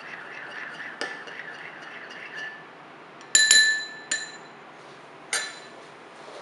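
A metal spoon stirs melted gelatin in a small porcelain bowl, scraping and ticking lightly against the china. Then come three ringing clinks of the spoon against the bowl's rim, the last as it is laid across the edge.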